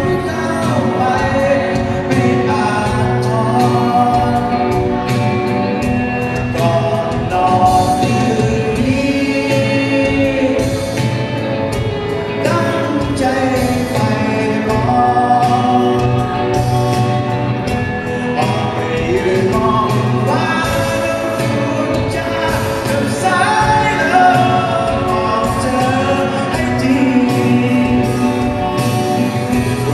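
Live band music: electric guitars and drums with sung vocals, continuous and steady in level.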